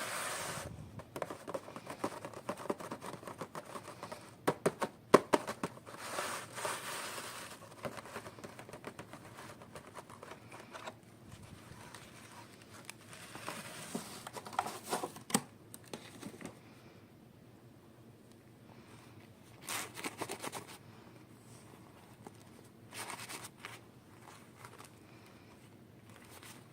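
Toy packaging being handled and opened: plastic and paper crinkling and tearing in irregular bursts, with sharp little clicks. Quieter stretches come between the bursts in the second half.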